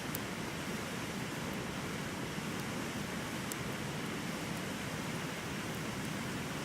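Bonfire burning with a steady hiss and a few sharp crackles, one just after the start and another about three and a half seconds in.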